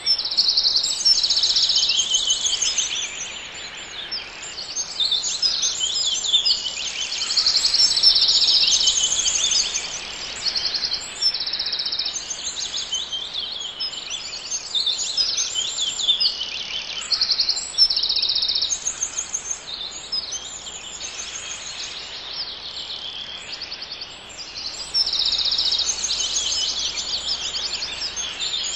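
A dense chorus of birds singing, with many short, high, trilling chirps overlapping one after another over a faint background hiss, a forest soundscape.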